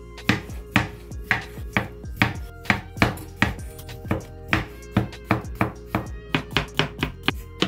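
Chef's knife slicing small tomatoes on a bamboo cutting board: the blade knocks on the board about twice a second, with the strokes coming faster near the end.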